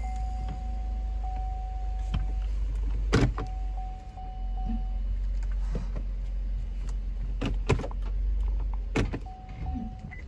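Cabin of a 2011 Cadillac SRX with the engine idling as a low steady rumble, while a thin steady tone comes and goes. Sharp clunks come about three seconds in, twice near the middle and once near the end, as the brake pedal is pressed and the transmission is shifted into drive and reverse to test a newly fitted brake master cylinder.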